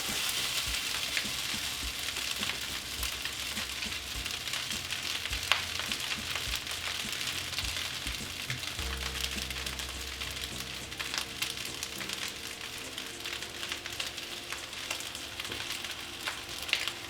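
Pork fried rice sizzling steadily in a hot oiled pan, with a few scattered sharp clicks. A low steady hum joins about halfway through.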